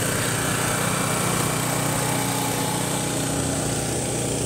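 Engine of an off-road 4x4 running steadily at an even speed.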